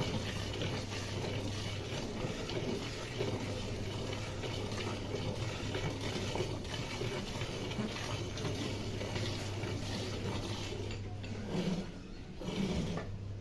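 Cow being milked by hand: steady, irregular strokes of milk squirting from the teats into a pail.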